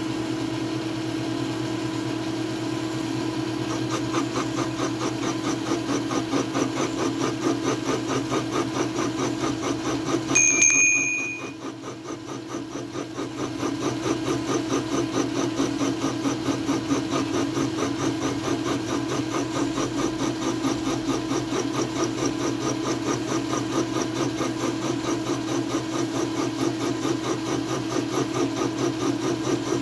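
Milling machine spindle running with a boring head taking a cut to enlarge a hole in a metal plate: a steady machine hum with a fine rhythmic pulse once the cut engages. About ten seconds in there is a short high ringing tone, then the sound drops for a couple of seconds and builds back up.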